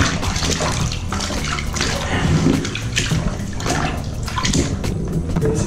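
Water sloshing and splashing irregularly in a plastic bucket as a motorcycle helmet's foam liner pads are swished and squeezed by hand, rinsing the soap out of them.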